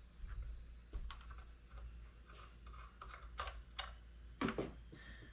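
Faint scattered clicks and light handling of small metal parts on a floor edger as its plate is taken off, with a few sharper clicks about a second in and near four seconds.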